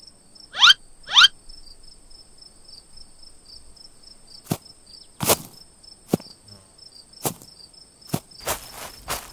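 Night ambience of crickets chirping in a steady high, pulsing trill. Two quick rising swoops come about half a second and a second in. Scattered knocks then turn into footsteps near the end.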